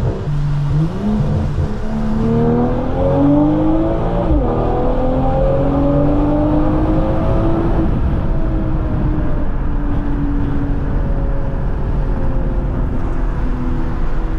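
2022 BMW M240i's turbocharged 3.0-litre inline-six, heard from inside the cabin through a Cobra axle-back exhaust with the stock mufflers and valves removed and a catted downpipe. The car accelerates hard, the note climbing through the gears with a quick upshift about four seconds in. It then eases off into a slowly falling cruise note for the second half.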